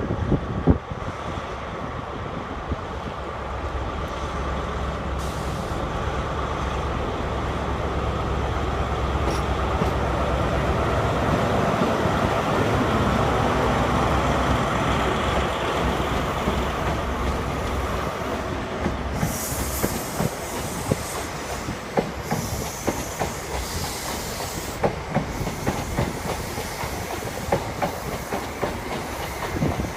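Diesel train running past: a low engine rumble builds to its loudest about halfway through, then fades into the rhythmic clickety-clack of wheels over rail joints.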